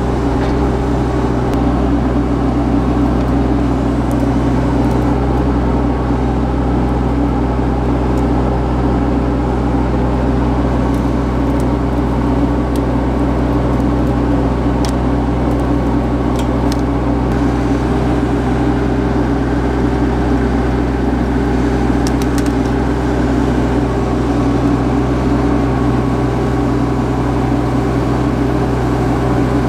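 Summit TX25 compact tractor's diesel engine running steadily while its loader grapple lifts and drags downed pine limbs.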